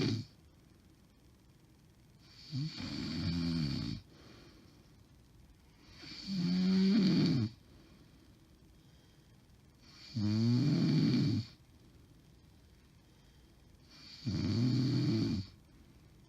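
A woman's heavy snoring: four loud snores about four seconds apart, each with a wavering, bleating pitch, and quiet breathing between them. This is snoring that the uploader takes as a sign of sleep apnea.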